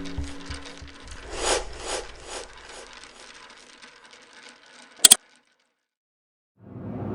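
Animation sound effects: mechanical ratcheting with a couple of swishing sweeps, fading away. A sharp double click comes about five seconds in, then a moment of silence, and a low rumble swells in near the end.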